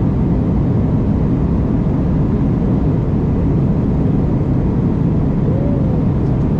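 Steady in-flight cabin noise of an Airbus A319: a constant low rush of engines and airflow with no change in level. A faint, brief pitched sound rises and falls about five and a half seconds in.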